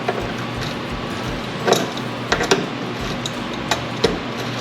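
Several sharp metallic clicks and clinks, irregularly spaced, from a wrench working the threaded fill plug on a skid steer's chain-drive case.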